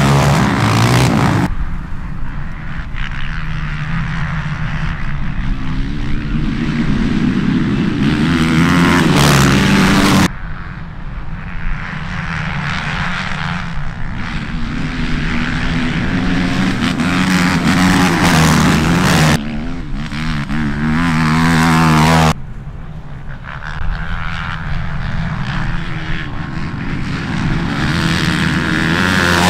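Race ATV (sport quad) engines at high revs, rising and falling in pitch as the quads accelerate and pass. The engine sound changes abruptly several times.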